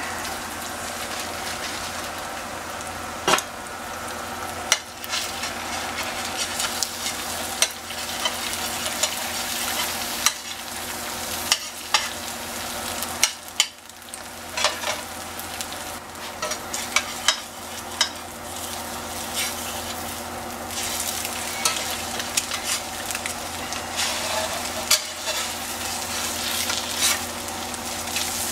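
Eggs frying in butter in a stainless steel skillet: a steady sizzle with sharp pops and clicks scattered through it. Near the end a spatula scrapes the pan as the eggs are turned over.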